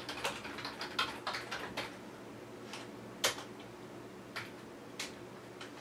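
Typing on a computer keyboard: a quick run of keystrokes over the first two seconds, then a few single key presses, one louder click a little over three seconds in.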